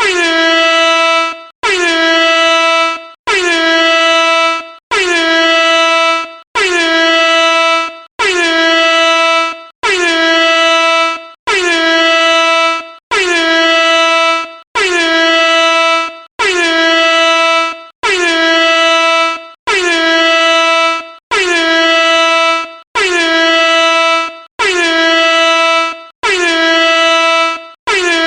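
Air horn sounding in a long series of short, loud blasts, one about every second and a half, each blast a little over a second long with a slight dip in pitch as it starts; every blast is identical.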